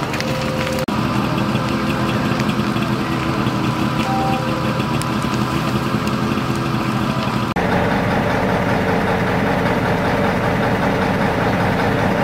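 Fire engine's diesel engine running steadily, cut off abruptly twice as the sound changes, and deeper and more even for the last few seconds.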